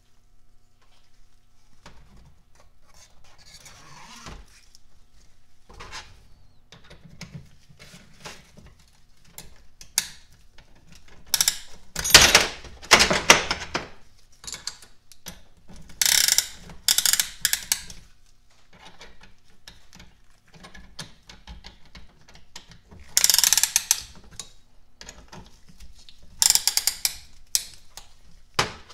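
Ratcheting piston ring compressor being tightened around a piston to squeeze its rings, in about four bursts of rapid ratchet clicks, with small clinks of metal parts in between.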